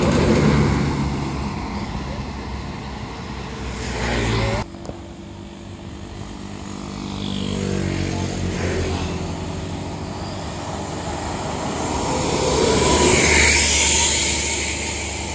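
Heavy vehicles, buses, passing close by on a road, their engine note swelling and fading as each goes by, with a falling pitch as one pulls away. The sound drops off abruptly about four and a half seconds in, and the loudest pass, with strong tyre and wind hiss, comes near the end.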